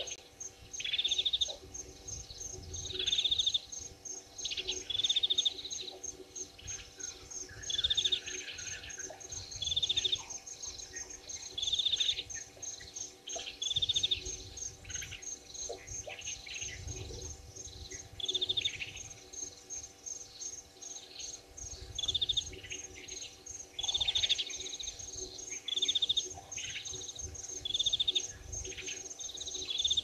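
A bird repeating a short, rapid trill of high notes about every two seconds, over an insect's steady, fast, high ticking.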